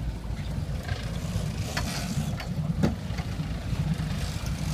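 Sport-fishing boat's engine running steadily with a low rumble, with a couple of sharp clicks, the clearest about three seconds in.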